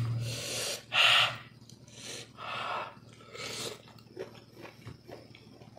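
Close-miked eating sounds: a man chewing spicy beef skin and bitter melon and taking several short, noisy breaths, the loudest about a second in.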